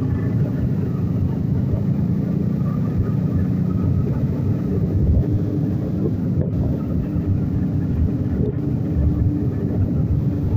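Motorcycle riding at a steady low speed among other motorcycles: a continuous low rumble of engines and wind buffeting the microphone, with a faint steady engine hum in the middle.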